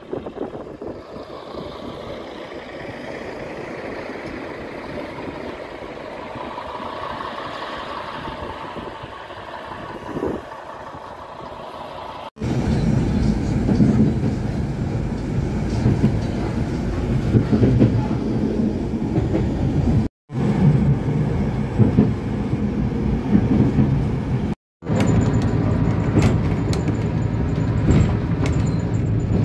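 A single-car diesel railcar pulling away, its engine and drive whine changing pitch as it gets going. About twelve seconds in, this cuts to a louder, steady low rumble of the railcar running, heard from on board, with two brief dropouts.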